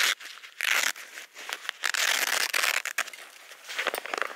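Crinkling and rustling of a reflective, Primaloft-insulated pouch cozy and the foil meal pouch inside it as the cozy is opened by hand. It comes in several irregular bursts, the longest about two seconds in.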